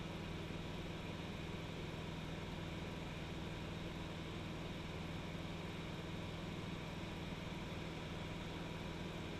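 A high-wing light aircraft's engine and propeller droning steadily in flight, heard from inside the cabin.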